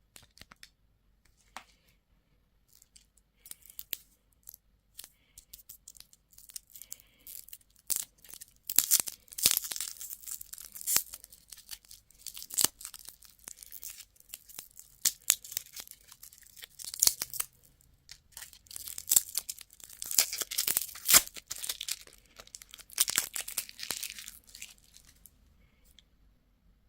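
Plastic candy wrapper being torn open and crinkled by hand: scattered clicks at first, then two long spells of dense tearing and crackling, the second near the end.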